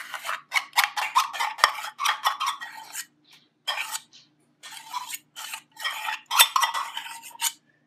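Metal spoon scraping and tapping mayonnaise out of a stainless steel measuring cup: a run of quick scrapes and clinks, with a short pause about three seconds in.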